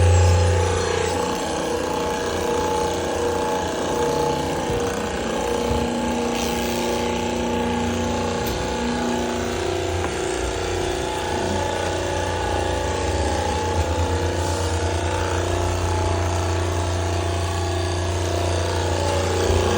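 Hydraulic pier-driving rig running steadily, a constant machine hum from its hydraulic power unit.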